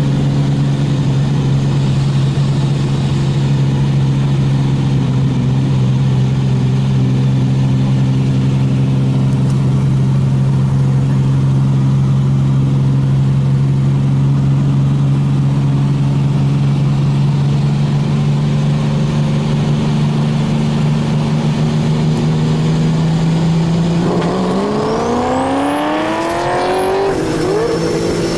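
Car engine holding a steady speed, then accelerating hard about 24 seconds in with a rising pitch, a short dip near 27 seconds like a gear change, and rising again: a roll-race run from the rolling start into full throttle.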